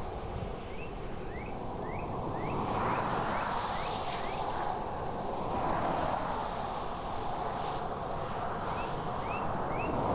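Roadside outdoor ambience: a steady rushing hiss of distant road traffic that swells and fades, with two runs of short rising chirps, the first starting about half a second in and the second near the end.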